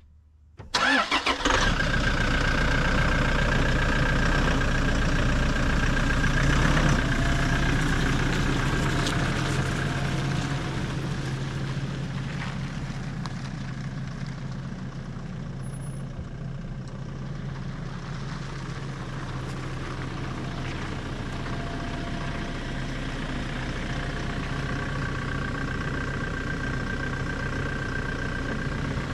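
A car engine starts about a second in and then runs steadily, easing down somewhat in level after about ten seconds.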